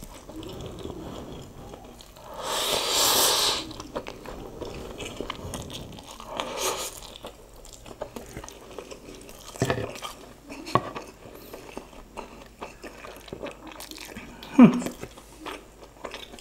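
A person slurping a mouthful of instant noodles loudly about two to four seconds in, and again briefly around seven seconds, then chewing wetly with small clicks. There is a brief hum near the end.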